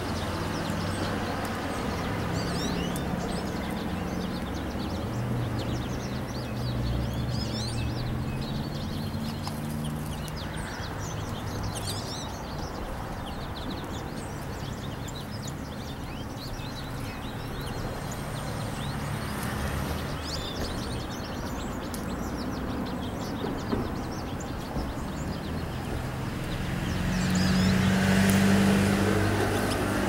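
Steady hum of road traffic, rising as a vehicle passes close near the end, with small birds chirping and twittering throughout.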